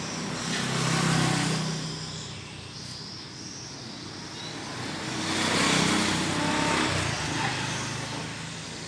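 Motor vehicles passing by, a low engine rumble that swells and fades twice: about a second in, then more strongly around six seconds.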